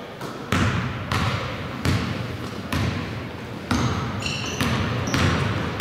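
A basketball being dribbled on a hardwood gym floor, bouncing about once a second. Sneakers squeak briefly on the floor about four seconds in.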